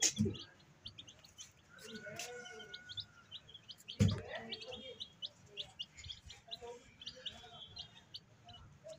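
A group of young chicks peeping: many short, high chirps overlapping throughout, with a dull thump about four seconds in.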